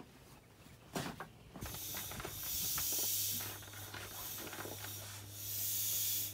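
Air hissing through the valve of an inflatable sleeping mattress in two long surges, ending sharply. A steady low hum sets in about three seconds in.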